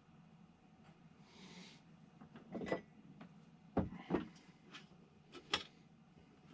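A short hiss, then a series of sharp knocks and clicks, about five of them a second or so apart, as things are handled and set down in a small room.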